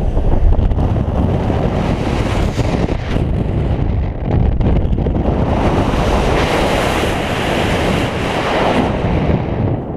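Wind rushing over a paraglider pilot's camera microphone during acrobatic flight: a loud, continuous rush that grows louder and brighter about five and a half seconds in as the airspeed picks up.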